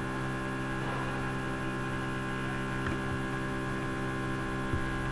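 Steady electrical mains hum, a constant low buzz with many overtones and no other sound.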